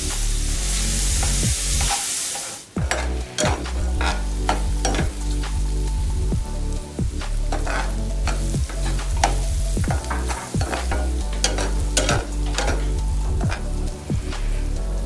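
Food frying and sizzling in a pan while a spoon stirs it. From about three seconds in, the spoon keeps clinking and scraping against the pan.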